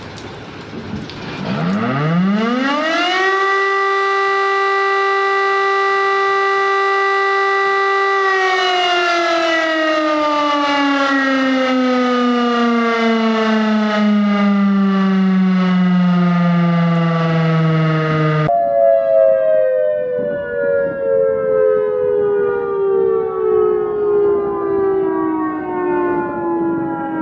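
Outdoor tornado warning siren winding up quickly to a steady single tone, holding it for about five seconds, then slowly winding down. Partway through, the sound changes abruptly to a second siren already winding down, with two tones sounding together and the level swelling and fading.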